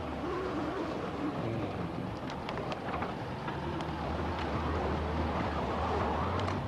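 Steady low hum of a car's engine and road noise heard from inside the moving car, with scattered light clicks and crackles over it.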